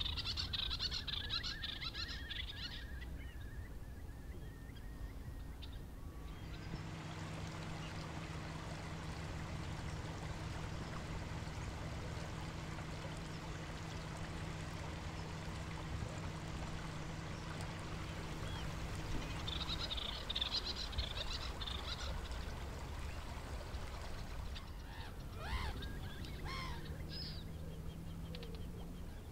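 Wild birds calling on a tidal marsh: a burst of high chattering calls at the start and again about two-thirds of the way through, and calls that swoop up and down near the end. Under them, a steady low hum over an even background hiss runs through the middle stretch and returns near the end.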